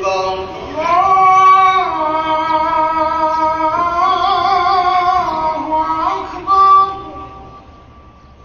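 An imam's long, melodic takbir ("Allahu akbar"), chanted in a single man's voice with drawn-out held notes and a slow wavering pitch, the call for the congregation to bow into ruku. The chant ends about seven seconds in.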